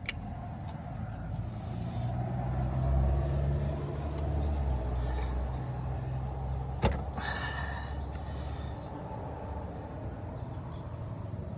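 A low engine rumble, like a vehicle going by, that swells and then fades. There is one sharp metallic click about seven seconds in, followed by a brief hiss.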